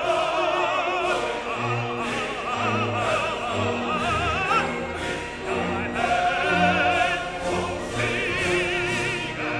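Background music: a classical operatic voice singing with wide vibrato over orchestral accompaniment.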